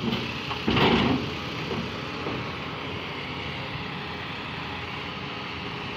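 Heavy diesel machinery running steadily, with one loud, short burst of noise about a second in.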